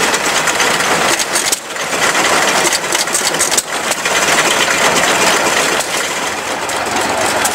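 An engine running steadily, with a dense noisy sound and brief dips about once a second.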